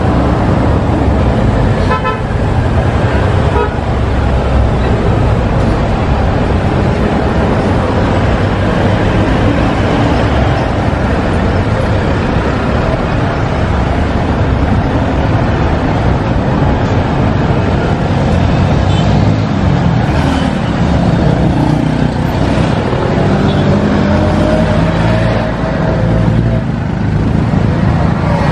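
City street traffic: vehicle engines running and passing, with a short horn toot about two seconds in.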